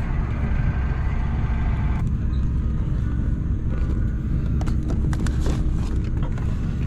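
Steady low rumble of an Airbus A350 cabin, with a busier mid-range hum that drops away about two seconds in. A few light clicks and knocks come from a seat-console storage compartment being pressed open and rummaged through.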